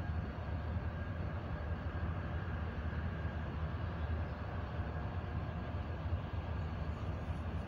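Diesel-electric freight locomotive idling: a steady low rumble with a faint steady whine above it.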